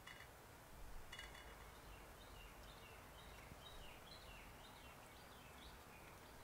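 Faint birdsong: a quick run of short chirps over a low hiss. Two light ringing clinks, like metal or glass altar vessels touching, come at the start and about a second in.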